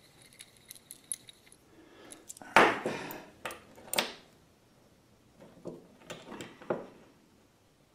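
Small metal clamps and steel pieces being handled on a workbench: light ringing clinks and rattles, a louder clatter about two and a half seconds in, then a few sharp clicks.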